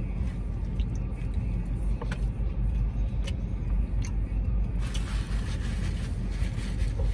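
A man biting and chewing food, with a few soft mouth clicks, over a steady low rumble inside a car. A rush of hiss comes in about five seconds in and fades a second or so later.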